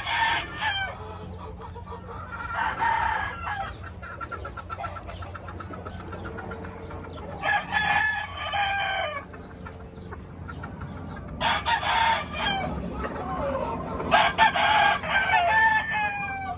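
Gamecocks crowing, about five crows in turn, each lasting a second or so, with soft clucking between them.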